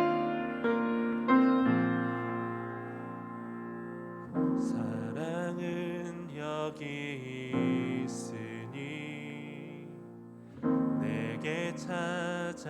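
Piano or keyboard playing a worship-song introduction, chords struck and left ringing. About four seconds in, a second melody line with vibrato joins above the chords.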